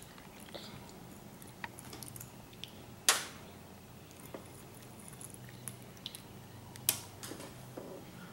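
A toddler chewing chocolate chips, with faint mouth noises and small ticks over a low steady hum. Two sharp clicks, about three and seven seconds in, are the loudest sounds.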